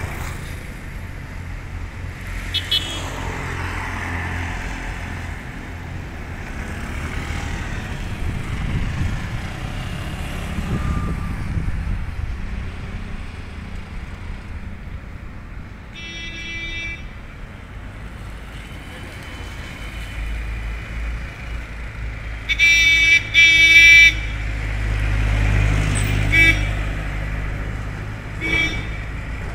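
Road traffic: vehicle engines and tyre noise, with a deeper engine sound building late on. Vehicle horns honk several times in the second half, the loudest a double blast about three-quarters of the way through.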